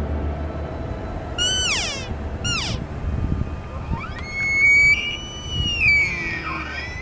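Elk calling: two short squealing calls that fall steeply in pitch, then a longer bugle that climbs to a high, held whistle for about two seconds and falls away.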